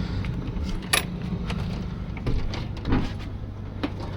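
A few clicks and knocks, with a soft thump about three seconds in, as the travel trailer's entry door is opened and someone climbs in, over a steady low engine-like rumble.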